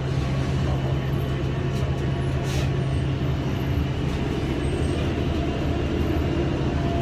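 Steady low engine hum and rumble of a city bus, heard from inside the passenger cabin. A short hiss comes about two and a half seconds in.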